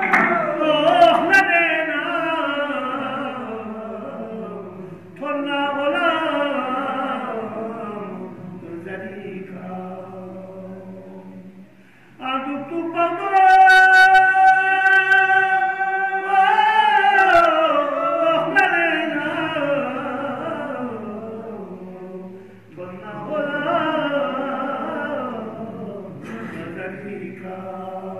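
Unaccompanied male voice chanting a devotional qasida in Balti, in long melismatic phrases broken by short breaths, with one long held note about halfway through.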